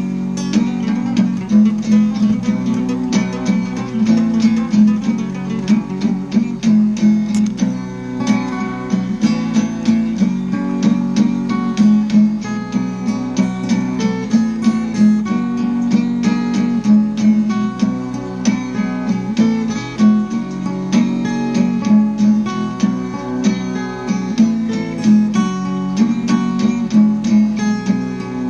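Acoustic guitar music, quickly plucked and strummed.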